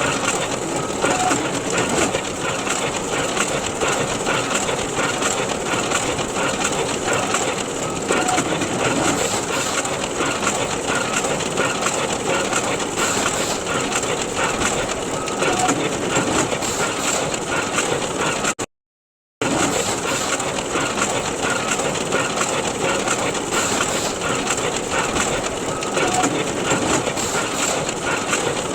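Photocopier running steadily, a dense whirring mechanical clatter. It cuts out for under a second about two-thirds of the way through, then resumes.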